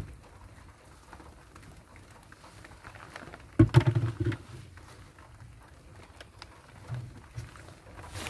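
Van's rear door, weighed down by a mounted spare tire, clunking once about three and a half seconds in, with a short rattle after; otherwise only faint background.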